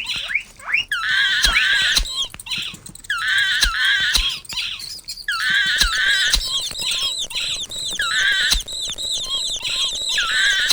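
Mouse squeaking sound effect: runs of rapid high-pitched squeaks and chirps, broken by short pauses, with a few sharp clicks among them.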